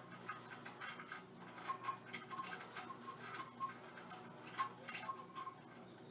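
Irregular light metallic clicks and ticks, several a second, some with a brief ring: small toilet-bolt hardware such as washers and nuts being handled and fitted.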